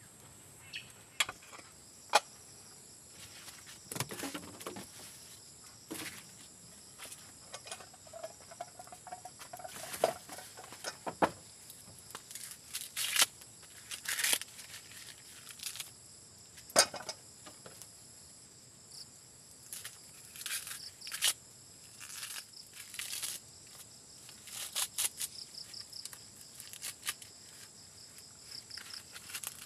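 Crickets and other insects trilling steadily, with repeated dry rustles and sharp tearing sounds as green husks are stripped from ears of fresh corn.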